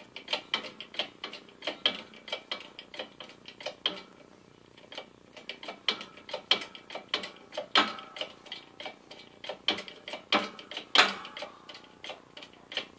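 Rapid light metallic clicking, about three a second, as a shaft is worked out of a lathe's quick-change gearbox in a shop press. There is a short lull about four seconds in, and a few louder knocks come later.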